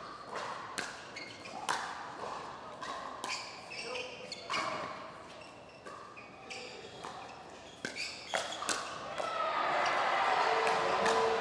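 Pickleball paddles striking a plastic ball in a rally: sharp pops at irregular intervals. Crowd noise swells over the last few seconds.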